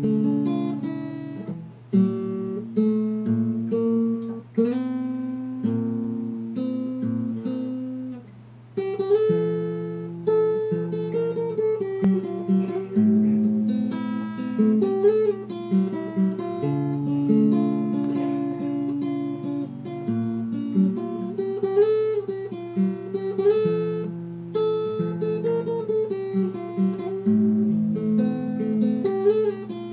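Solo fingerstyle acoustic guitar: picked bass notes under a melody line, with a brief drop in loudness about eight seconds in before the playing goes on.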